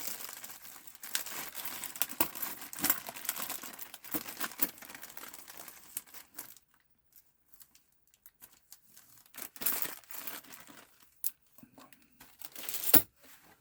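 Crinkling and rustling as small parts and screws from a PS4 teardown are handled, with scattered light clicks. It pauses briefly midway, and there is one sharper click near the end.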